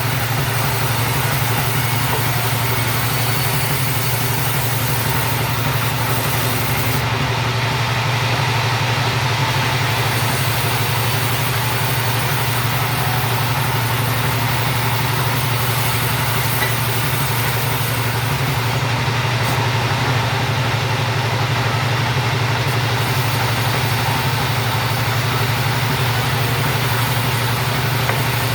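Two-stroke chainsaw engine running steadily at a constant pitch, as when sawing timber into rafters.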